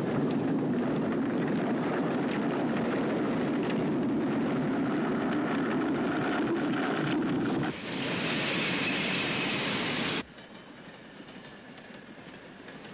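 Moving train sound effect: a steady rumble and rattle of cars running on the rails. It turns brighter and hissier a little past halfway, then cuts off abruptly about ten seconds in, leaving a much quieter background.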